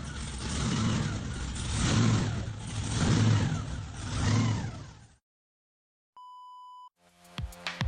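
Car engine being revved in four blips, each one rising in pitch and falling back, for about five seconds. It cuts off, and after a pause a short steady electronic beep sounds, followed by music with a beat near the end.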